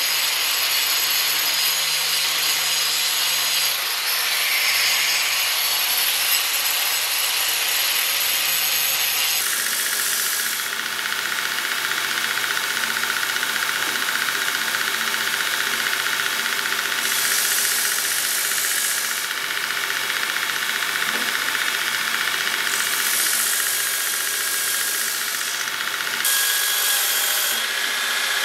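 Angle grinder with a cutoff disc running and cutting a steel bar, a dense hiss over the motor hum. About nine seconds in this gives way to a belt grinder running with a steady whine, its abrasive belt grinding flat steel pieces in passes that swell into louder hissing every few seconds.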